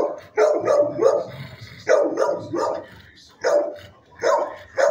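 Dogs barking, about nine barks in quick runs of two or three.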